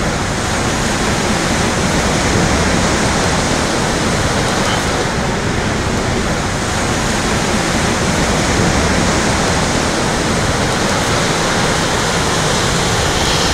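Ocean surf on a beach: a steady, loud rush of breaking waves that swells gently now and then.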